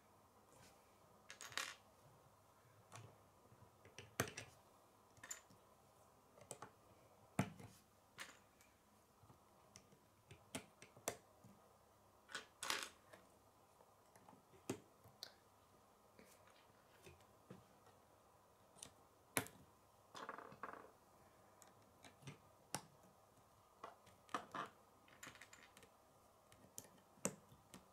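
Plastic K'nex rods and connectors being handled and snapped together: irregular sharp clicks and small plastic knocks, a few every couple of seconds.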